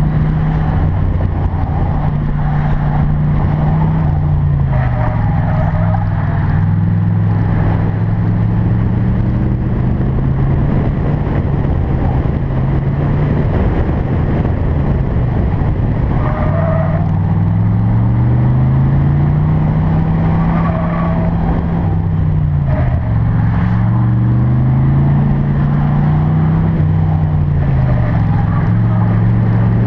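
1992 Chevrolet Corvette's V8 engine driven hard through an autocross course, its note climbing and dropping again and again as the driver accelerates and lifts between cones, with a long climb in the middle and sharp drops near the start and end.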